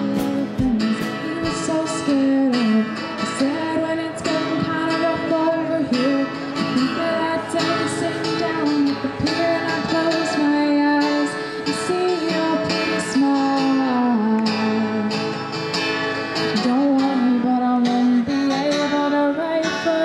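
Background music: a song with a sung melody over strummed acoustic guitar.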